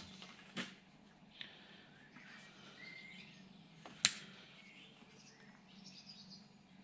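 Hand cutters snipping glue-lined heat-shrink tubing into short pieces: a sharp snip about half a second in, a fainter one soon after, and the loudest about four seconds in. Faint high chirps sound between the snips.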